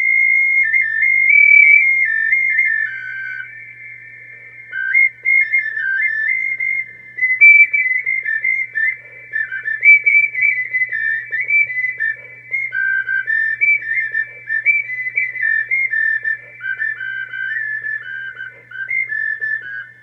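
Small handmade clay flute or ocarina being played: a high-pitched, pure-toned melody of short notes stepping up and down.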